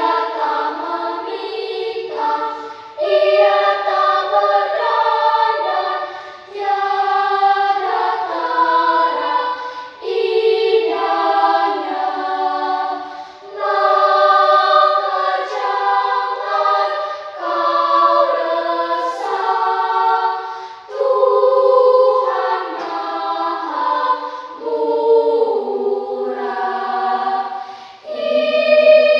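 Mixed choir singing a slow hymn in several-part harmony, in phrases of a few seconds separated by short breaths.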